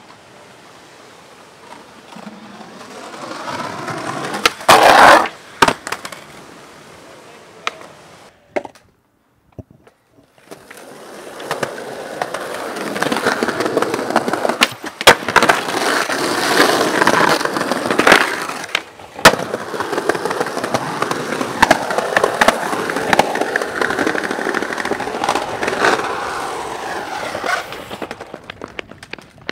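Skateboard wheels rolling on pavement with sharp pops and board clacks from tricks. A short run builds to a loud landing clatter about five seconds in. After a brief near-silent gap comes a long roll with several sharp clacks along the way.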